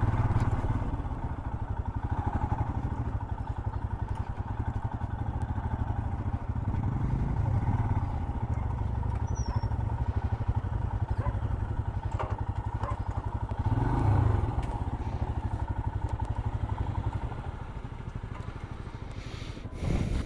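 Royal Enfield Himalayan's 411 cc single-cylinder engine running as the motorcycle is ridden, a steady low pulsing note. The note swells twice and fades over the last few seconds as the bike slows, with a short bump near the end.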